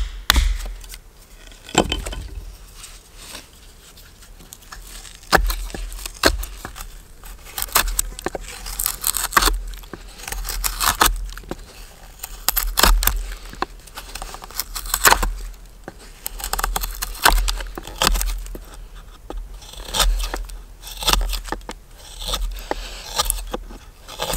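Hook knife carving out the bowl of a wooden kuksa cup: irregular scraping cuts that shave curls of wood from the hollow, coming in quick runs with short pauses between.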